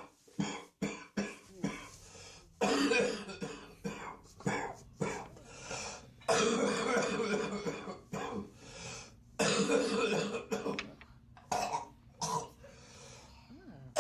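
A person coughing over and over: a quick run of short coughs, then several longer coughing fits, each lasting a second or two.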